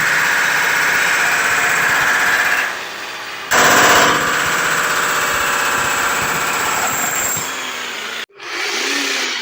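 Makita HM1214C electric demolition hammer running, with a rapid, even hammering. It drops back about 3 s in and starts again half a second later, then cuts off suddenly near the end before running again. This is typical of a test run after servicing.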